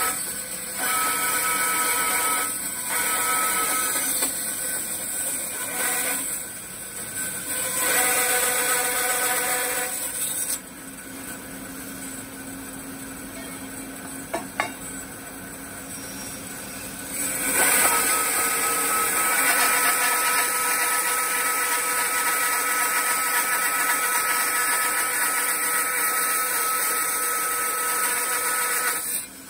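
Vertical band saw cutting through an aluminum casting: a loud, steady whine that comes and goes in bouts as the blade bites into the metal. In the middle stretch the part is off the blade and being turned, and the saw runs quieter, with a single click. Then a long, steady cut runs until it stops just before the end.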